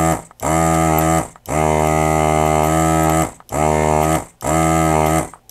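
Vacuum desoldering gun's pump running in repeated bursts, about six of them, each a steady hum that starts with a short rising whine and lasts from half a second to nearly two seconds. It is sucking solder out of the circuit board's holes where the optical jack was.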